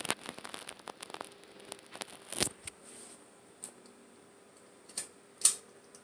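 Pull-chain switch on a Hunter ceiling fan's globe light kit: a rattle of light clicks from the metal chain, a sharp click a couple of seconds in, then two more clicks near the end, the last and loudest as the light switches on. A faint steady hum runs underneath.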